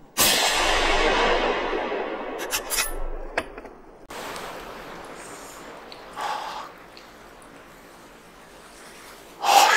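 A single .308 Winchester rifle shot, sudden and loud, its report echoing away through the forest over about two seconds. A few sharp clicks follow, then faint steady background noise.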